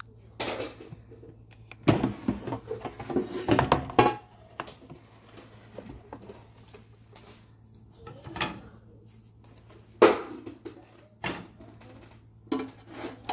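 Cosori air fryer basket being pulled out of the fryer: a dense run of sliding clunks and rattles about two seconds in. This is followed by a few separate sharp knocks of the basket being handled.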